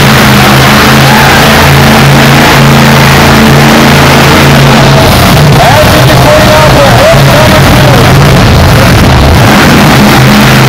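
Monster truck engine running loud and steady with some revving. The level is so high that the recording is saturated.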